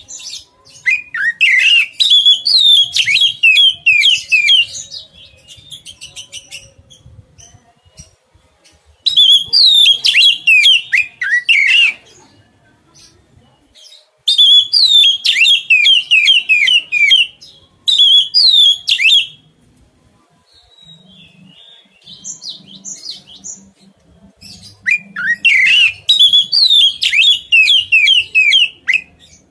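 A songbird singing in four long, loud bursts of rapid, varied notes, with short pauses between them.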